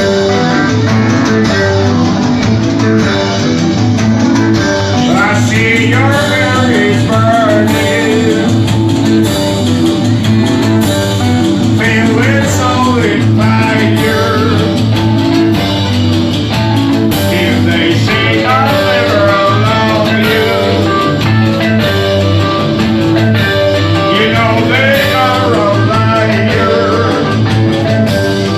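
A rock band playing live, with guitar over bass and drums and wavering melodic lines, a guitar lead or voice, coming in about five seconds in.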